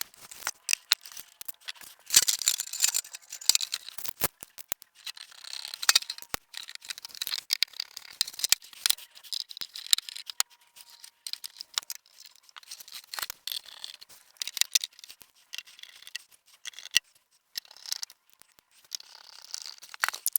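Irregular small clicks, rattles and scraping of plastic and metal parts being handled and fitted together as a disc player is reassembled.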